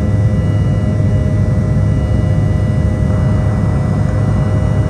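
In-cabin noise of an Embraer E170 climbing out after takeoff: a steady, loud low drone from its turbofan engines and the airflow past the fuselage, with a thin steady whine above it.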